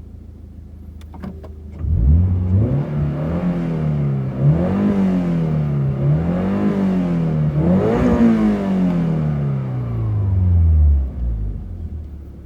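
Toyota GR86's flat-four engine revving through a Fujitsubo AR-M aftermarket muffler. About two seconds in the note comes in and swells up and down three times, highest on the third, then falls slowly until it drops away near the end.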